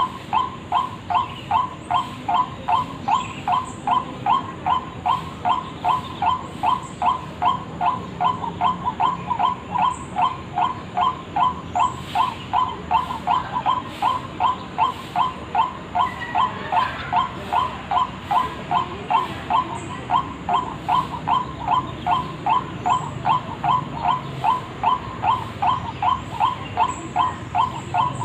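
White-breasted waterhen (ruak-ruak) calling, a lure call made of one harsh note repeated evenly about two and a half times a second without a break.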